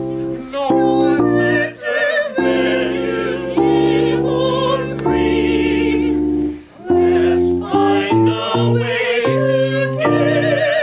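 Music: a sung melody of long held notes with vibrato over a keyboard or piano accompaniment, in an operatic style.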